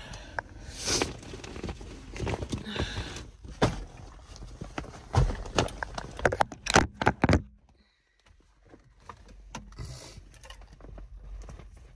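Handling noise inside a car: a phone camera being moved and set down, with clothes rustling and a series of sharp knocks and taps, loudest about five to seven seconds in. It drops almost to nothing around eight seconds in, then faint rustling follows.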